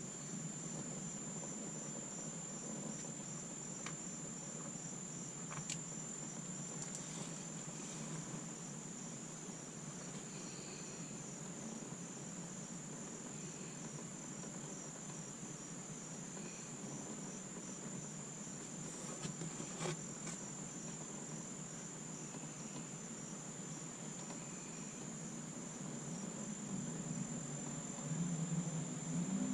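Crickets trilling, a high continuous pulsing chirr, over a low steady rushing noise, with a few faint clicks.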